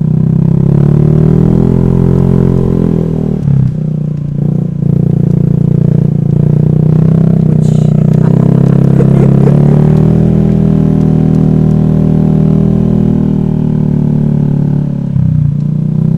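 Honda Vario scooter's single-cylinder engine running while riding, a steady engine note. It dips briefly twice, about three and a half seconds in and again near the end, and climbs back each time.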